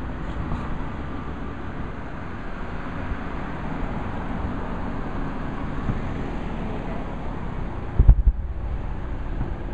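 Steady outdoor background noise with wind on the microphone, then one loud, deep boom about eight seconds in from a distant fireworks shell bursting.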